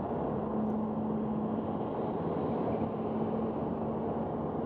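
Road and wind noise inside the cabin of a 2018 Subaru WRX at about 55 mph. A steady low hum runs through most of it.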